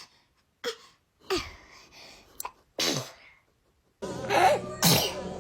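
A baby sneezing several times in quick succession: small, short sneezes about a second apart, some ending in a little falling squeak. A louder, continuous stretch of sound begins near the end.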